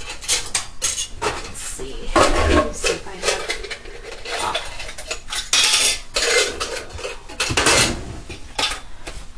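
Kitchenware clattering: dishes, jars and utensils knocked and shifted about in a rummage, an irregular run of clinks and knocks.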